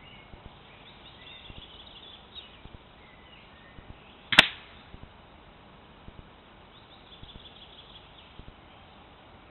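A single shot from an Egerь SP 5.5 mm air rifle: one sharp crack about four seconds in. Birds sing faintly in the background.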